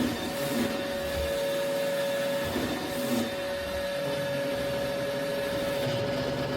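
Robot vacuum running steadily, a continuous motor and brush hum with a held whine.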